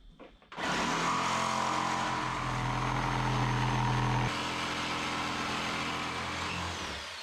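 Handheld electric power tool starting up and running steadily while working along the sheer line of a plywood hull panel. Its note steps down about four seconds in, then falls in pitch and fades near the end as the tool spins down.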